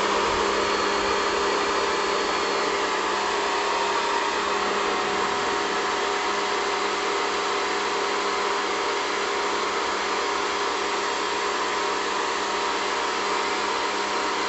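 Electric high-pressure washer running steadily, its motor humming under the hiss of the water jet striking the window and brickwork.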